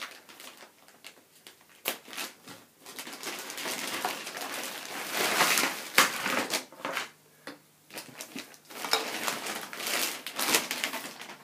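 Clear plastic wrapping crinkling and crackling as it is pulled off kayak paddles, in bursts with short pauses, and a few sharp knocks as the paddle pieces are handled.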